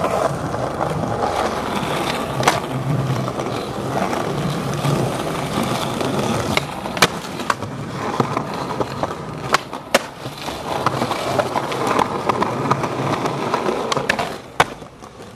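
Skateboard wheels rolling over concrete pavement with a steady rumble, broken by several sharp clacks of the board. The loudest clack comes near the end, as the skater hits a planter ledge, and the rolling quiets soon after.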